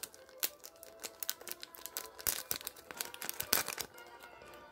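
Thin clear plastic packaging bag crinkling and crackling as it is handled and pulled at by hand: a fast, irregular run of crackles, loudest about three and a half seconds in.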